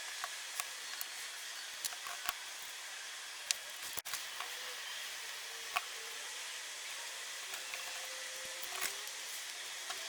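Scattered light clicks and taps of small parts being handled over a steady background hiss.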